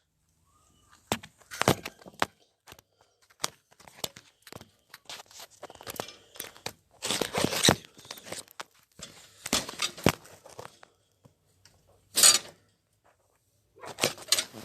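Cardboard and paper being handled, crumpled and torn: irregular rustling bursts and sharp crackling clicks with short pauses between them.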